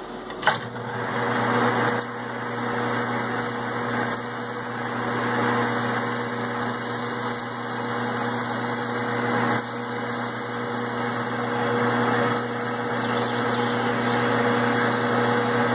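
A click about half a second in, then a metal lathe's motor comes up to speed and runs with a steady hum and whir as its tool cuts a spinning Delrin part.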